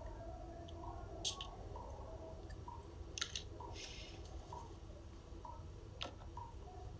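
A few sharp clicks, spread about two seconds apart, and a brief rustle of handling, over a low steady hum.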